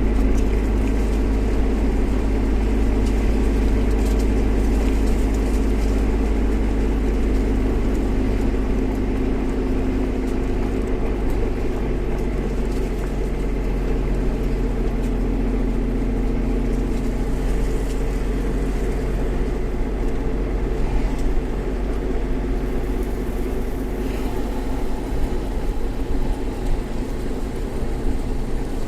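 Suzuki Jimny JB64's 660 cc turbocharged three-cylinder engine running as the vehicle drives, with road noise. The engine note is steady and shifts in pitch about halfway through.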